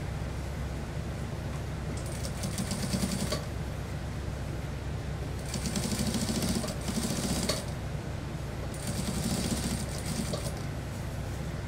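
Industrial sewing machine stitching a suit-trouser waistband in three short runs of rapid stitching with pauses between, over a steady low hum.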